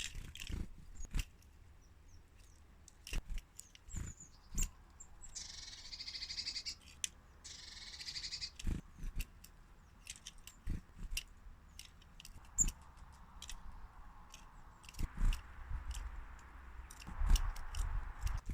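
Small birds close to the microphone, pecking and tapping in a quick irregular run of sharp clicks, with brief chirping in the middle.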